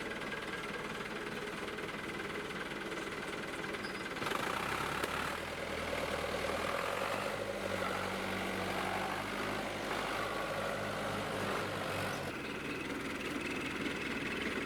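An engine running steadily, with a low drone that grows louder about four seconds in and drops back about twelve seconds in.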